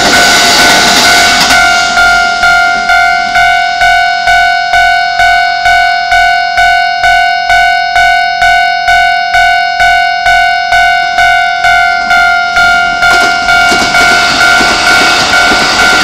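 Railway level-crossing warning bell ringing in a steady beat of about two dings a second. The tail of a Keikyu 600-series train rumbles past at the start, and a Keikyu 1000-series train runs through the crossing near the end, blending with the bell.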